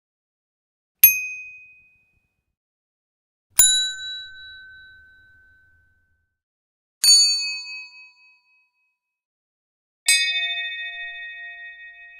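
YouTube notification-bell sound effects: four separate bell dings a few seconds apart, each a single strike that rings and fades, with silence between. Each ding has a different pitch, and the last one rings longest, with several tones.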